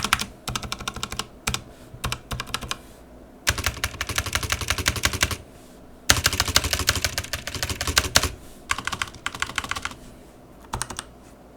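Razer BlackWidow mechanical keyboard fitted with Razer Phantom keycaps and new stabilizers, typed on fast in bursts of one to two seconds with short pauses between: a sound test of the new keycaps.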